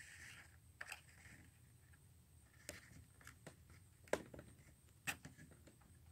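Very quiet handling: fingertips setting a small paper sign against a model building's wooden trim and pressing it in place, with a few faint taps and clicks, the clearest about four and five seconds in.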